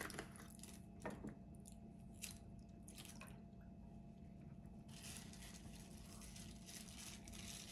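Milk poured from a plastic jug into a ceramic mug: a faint, even splashing hiss that sets in about halfway through, after a few light clicks as the jug is handled.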